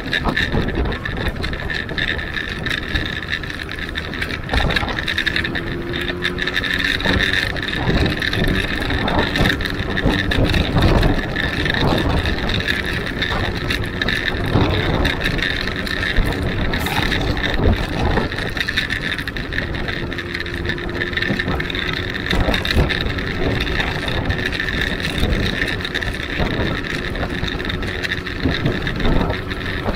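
Benelli Huanglong 600 motorcycle's inline-four engine running steadily on the road, with wind rushing over the microphone.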